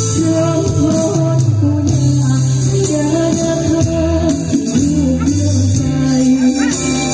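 A woman singing a Thai song into a microphone over amplified backing music, with a sustained bass line and light shaken percussion.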